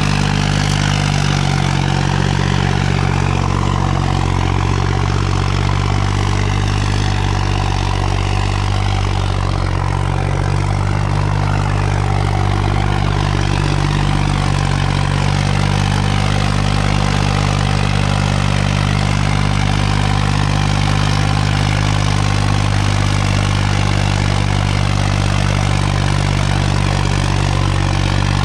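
Farmtrac 45 tractor's turbocharged diesel engine running steadily while pulling a harrow, a deep even drone that holds the same speed throughout.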